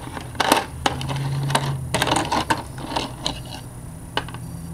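Plastic model-kit parts trees (light bar sprues) being picked up and handled, with a string of irregular light clicks and rattles as the plastic pieces knock together.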